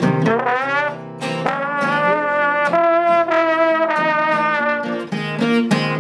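Slide trombone playing an instrumental break, a string of held notes with some sliding into pitch, over a strummed acoustic guitar.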